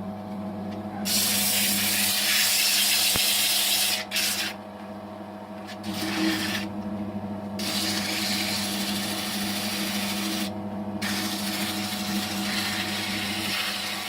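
Wood lathe running steadily at its lowest belt speed while 80-grit sandpaper is held against the spinning wooden mallet. The rasping hiss of the paper comes and goes in stretches of a few seconds as it is pressed on and eased off, over the motor's steady hum.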